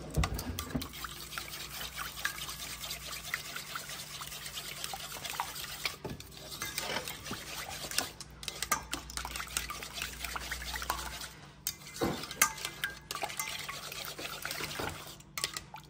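A fork whisking a runny buttermilk, egg and hot-sauce batter in a bowl: steady wet sloshing and stirring, with many light clinks of the fork against the bowl.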